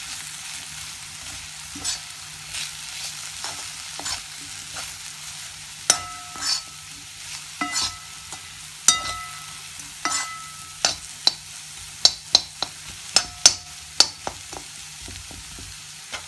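Potato pieces frying in a pan with a steady sizzle, while a spatula stirs them and clinks against the pan. Some clinks ring briefly. They come in a quicker run of several a second about twelve seconds in.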